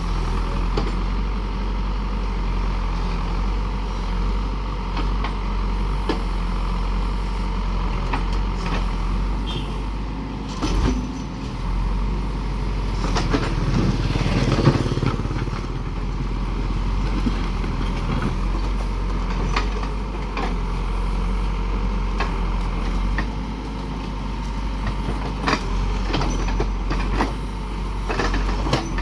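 Heavy diesel construction machine running steadily, with scattered short clanks and knocks. It swells louder for a couple of seconds about halfway through.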